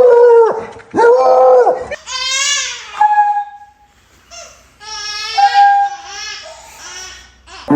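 Beagle screaming: a run of loud, drawn-out yowling calls, two arching ones near the start, then higher, wavering cries. There is a short lull in the middle before the cries start again.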